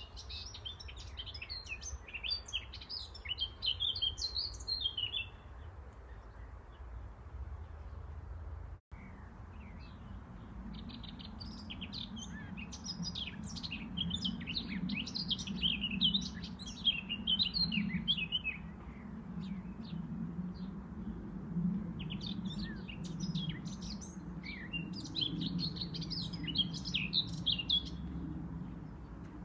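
Small birds chirping and twittering in quick clusters of short high notes, coming in three spells. There is a brief break about nine seconds in, after which a low steady hum sits underneath.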